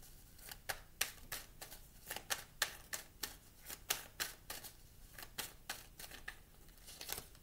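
A tarot deck being shuffled by hand: the cards click and snap against each other in quick, irregular taps, several a second.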